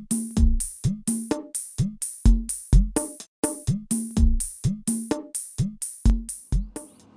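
Electronic backing music with a drum-machine beat of deep kick drums and crisp high clicks, about four hits a second, fading out near the end.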